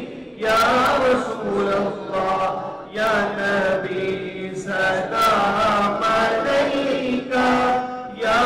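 A voice chanting a devotional melody in long sung phrases with short pauses between them.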